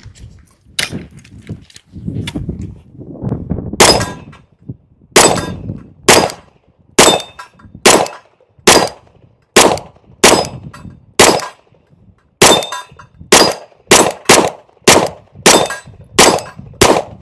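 A 9mm Sig P320 in a Flux Raider X pistol-caliber carbine chassis fires a string of about seventeen shots, the first about four seconds in, roughly one a second and coming faster near the end. Hits on a steel target give a metallic ring.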